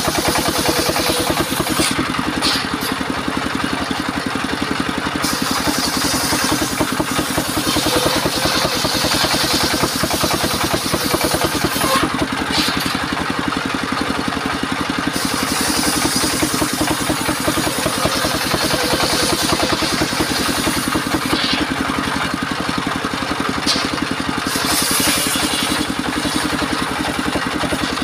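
Engine of a portable circular sawmill running steadily with a fast even pulse, under a high hissing whine from the spinning blade that fades and returns several times as timber is fed through and cleared.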